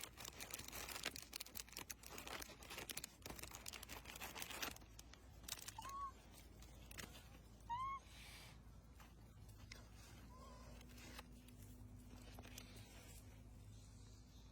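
Crackling, rustling noise for the first few seconds, then three short rising-and-falling coo calls from a macaque, the first two louder.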